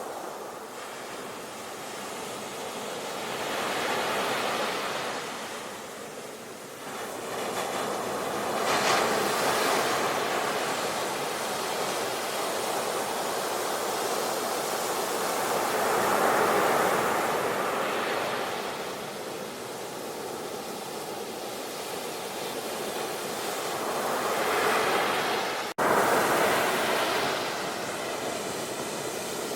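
Ocean waves breaking and washing on a shore, a continuous rush of surf that swells and falls back every few seconds. Near the end the sound drops out for an instant, as at an edit join.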